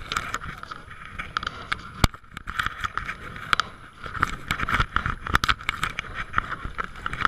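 Wind buffeting the microphone of a kayak-mounted camera, with water splashing against the hull in choppy waves as it is paddled, and many sharp clicks and knocks.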